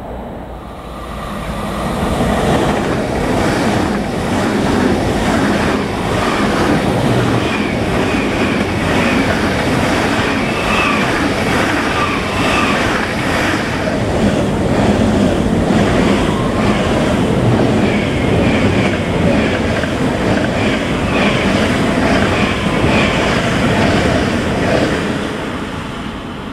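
A train passing on the track, its wheels clicking over rail joints in a steady rhythm, with a high wheel squeal. It swells within the first two seconds and fades near the end.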